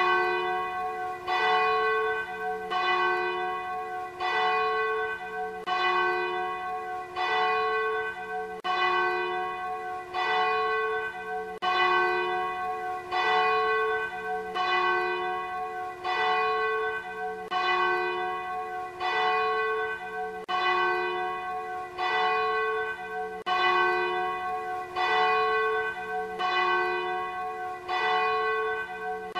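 Church bells ringing in a steady peal, two bells alternating high and low, a strike roughly every three-quarters of a second.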